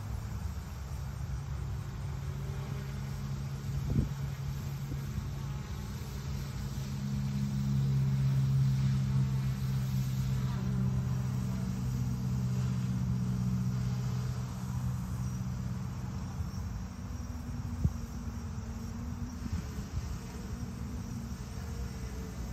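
Small drone hovering, its propellers making a steady buzzing hum that swells louder for several seconds in the middle. A sharp tick comes about four seconds in, and another near the end.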